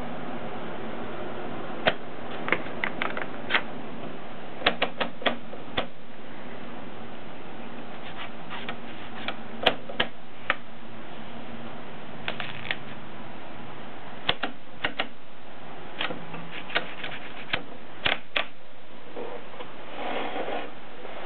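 Mignon index typewriter being typed on: single sharp clacks of the type striking the paper, in irregular clusters with pauses between them, over a steady hiss.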